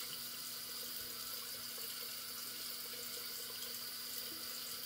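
Bathroom sink tap running cold water into the basin: a steady, even rush of water.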